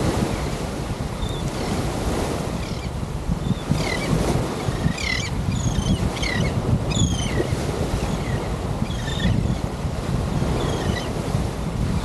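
Wind buffeting the microphone over breaking surf, a steady low rumble. From about four seconds in, a run of short, high bird chirps, many falling in pitch, comes and goes until near the end.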